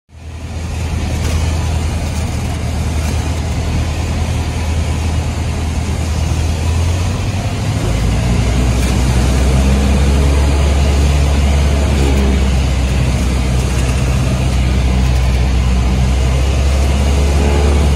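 Cessna 172's piston engine and propeller running steadily, heard inside the cabin with wind noise, during the approach to landing. The low drone drops in pitch about eight seconds in.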